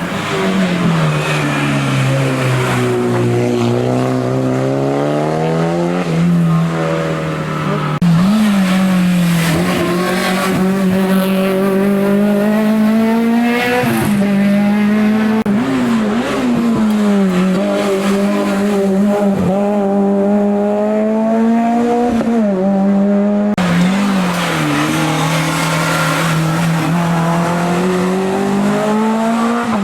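Race car engine on a hill-climb course, held at high revs throughout. The engine note rises and falls with the throttle, with several quick dips and recoveries at gear changes.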